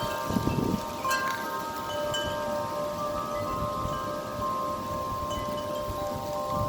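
Wind chimes ringing in strong gusting wind, several tuned tones struck over and over and left ringing. Wind rumbles low on the microphone briefly about half a second in and again near the end.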